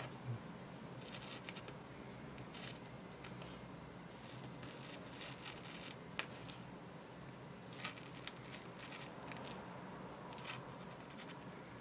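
A sharp razor blade cutting short straight lines through a clear stencil sheet laid on cardboard: faint scratching strokes, with a few sharper clicks.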